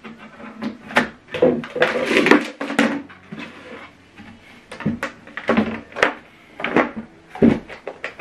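Series of knocks and clatters from handling: a power plug pushed into a power strip and cables moved, then the soundbar lifted and set down on a tabletop.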